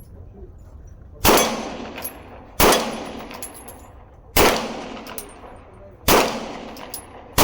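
Semi-automatic pistol fired four times at a slow, steady pace, each shot followed by a short echoing tail. Faint high pings follow the shots as rounds strike steel targets.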